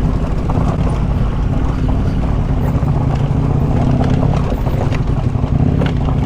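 Motorcycle engine running steadily under way, with wind buffeting the rider's microphone.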